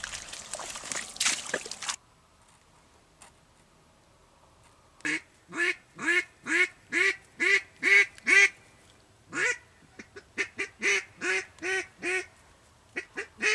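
Hand-blown Ketner duck call sounding a mallard hen's quacks: runs of loud, evenly spaced quacks, about two a second, in three series starting about five seconds in. A brief rustling noise comes first.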